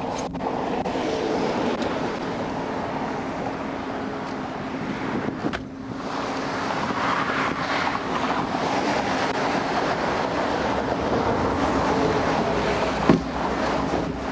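Highway traffic passing on wet pavement, a steady hiss of tyres and spray that swells and fades, over a steady low hum. A short sharp click about thirteen seconds in.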